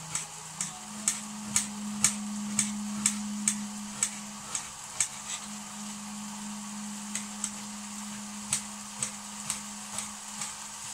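Knife chopping onion on a chopping board, sharp chops about two a second with a short pause around the middle, over the steady sizzle of a beef-and-potato mix frying in a pan. A low steady hum runs underneath.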